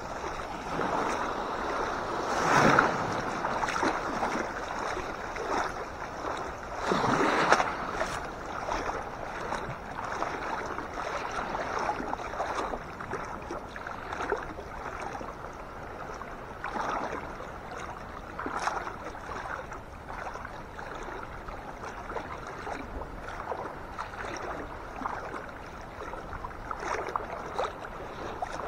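Seawater sloshing and splashing close up around a person wading through shallow surf, with small waves washing in. Two louder surges of splashing come about two and a half and seven and a half seconds in.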